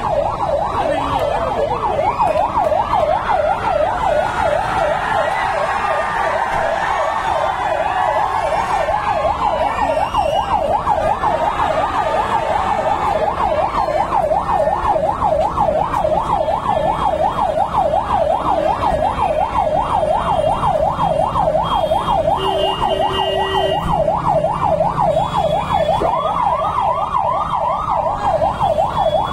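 Electronic siren sounding a fast, unbroken warble, its pitch swinging up and down several times a second.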